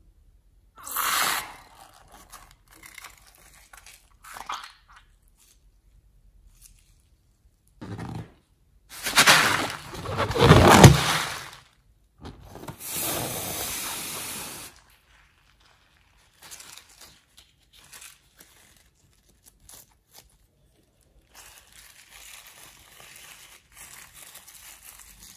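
Slime-filled rubber balloons being handled, snipped open with scissors and squeezed out over slime in a glass tray: a string of separate squishing and rubbing noises, loudest a little past the middle, followed by a few seconds of steadier noise. Soft, faint sticky mixing of the slime near the end.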